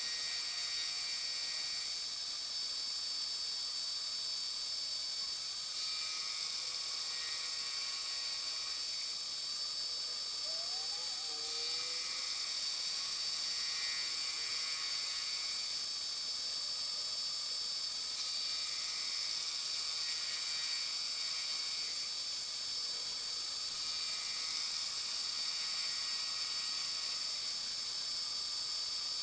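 Mini-mill spindle running with a steady high whine while an involute gear cutter cuts teeth into a brass rod on a dividing head. A fainter cutting sound swells and fades about every six seconds as each tooth is cut.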